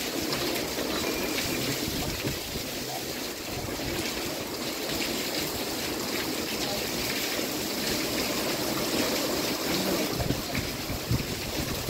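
Heavy hurricane rain falling steadily, with runoff pouring off the edge of a covered walkway's roof and splashing onto wet pavement. A couple of brief low thumps near the end.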